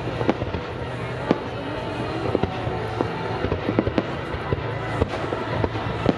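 Fireworks display: aerial shells bursting in a rapid, irregular string of sharp bangs and cracks over a steady crackling rumble, with music playing underneath.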